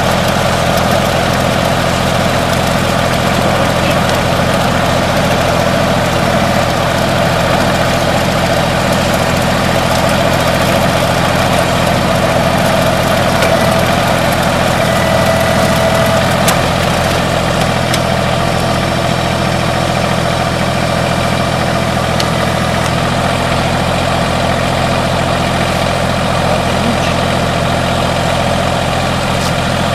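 TYM T233 compact tractor's diesel engine idling steadily.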